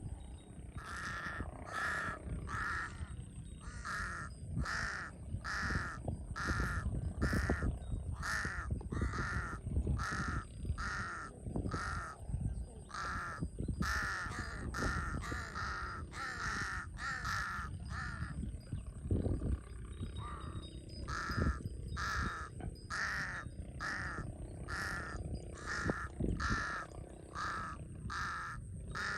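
Large-billed crow cawing over and over in a steady series, about two calls a second, with a short pause about two-thirds of the way through. A low rumble of background noise and a thin, steady high tone run beneath the calls.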